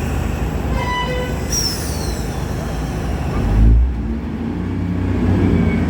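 Diesel train at a station starting to move off, its engine note building toward the end. A brief high tone and a falling whistle-like glide come early on, and a low heavy thump comes a little past halfway.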